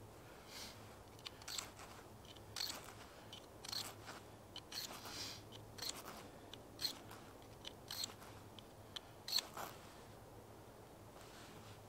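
Quiet, irregular clicks and crunchy snips, a dozen or so spaced a second or less apart, from something small being worked in the hands.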